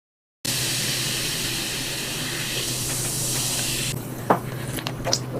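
A loud, steady hiss that cuts off suddenly after about three and a half seconds, followed by sharp mouth clicks and smacks of someone biting and eating.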